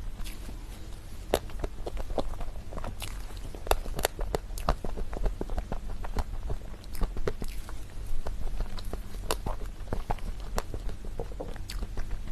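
Close-miked eating of a chocolate dessert: irregular, crisp clicks and crunches of biting and chewing, several a second.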